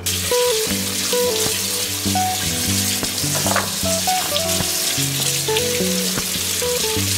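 Tap water running in a thin stream onto soaked almonds in a colander, a steady hiss that starts at once, with background music playing a stepped melody over it.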